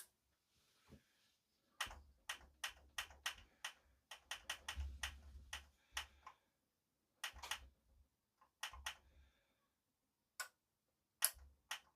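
Sharp plastic clicks in quick runs, several a second, with light knocks: the power switch of a Sherwood integrated amplifier being worked over and over while the amp stays on standby and will not come on.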